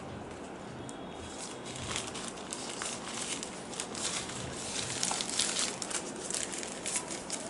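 Paper envelope and cards being handled and slid together, a run of paper rustling and crinkling that grows busier about two seconds in.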